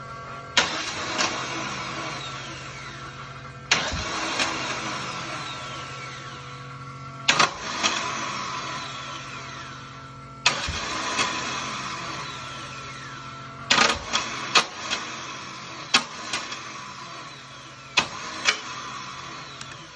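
Car engine being cranked over and over without catching: each try is a sudden burst followed by a falling whine that fades over a few seconds, about eight tries in all, some coming close together near the end.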